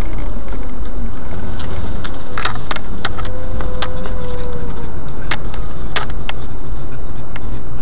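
Car driving: a loud, steady low rumble of engine and road noise, with scattered sharp clicks and knocks and a faint whine that rises and falls in the middle.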